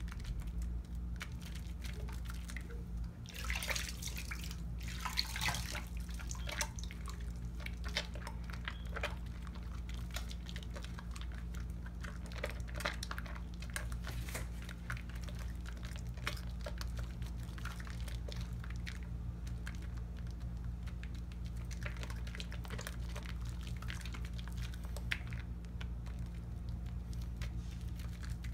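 Wet hands lathering a bar of cocoa butter soap: irregular squelching and crackling of soapy lather, busiest a few seconds in. A steady low hum runs underneath.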